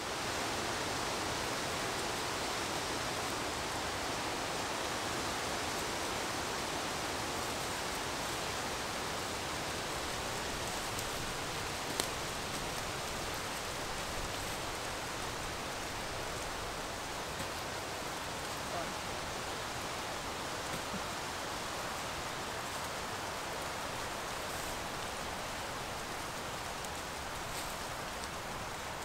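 A steady, even rushing noise, with one sharp faint click about twelve seconds in.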